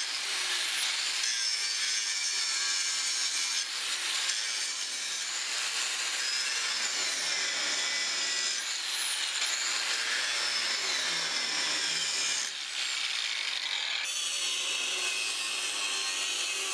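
Angle grinder grinding the end of a forge-welded billet of powdered steel and copper, throwing sparks. It makes a steady, harsh grinding noise, and the motor's high whine rises and falls as the disc bears on the metal. The sound changes abruptly a few times.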